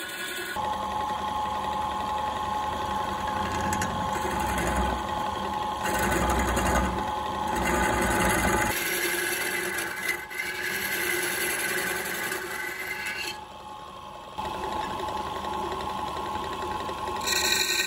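Wood lathe running while a hand-held turning tool scrapes and cuts into the spinning wooden blank: a steady machine whir with the rasp of the tool on the wood. The sound shifts abruptly a few times.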